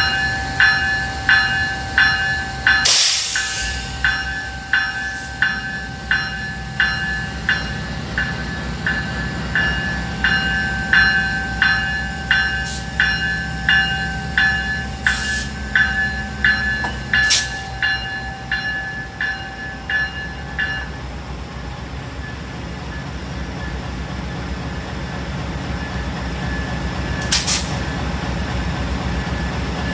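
Amtrak GE Genesis diesel locomotive's bell ringing about twice a second over the low, steady running of its diesel engine as it moves slowly past. A short, loud hiss comes about three seconds in. The bell stops about two-thirds of the way through, leaving the engine running.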